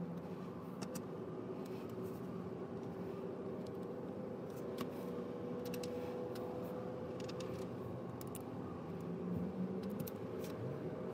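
Scattered small plastic clicks of LEGO Technic axles and connectors being handled and fitted together, over a steady low hum.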